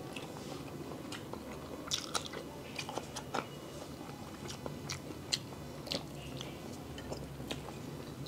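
Two men chewing and biting into peeled boiled eggs, with irregular sharp mouth clicks and smacks.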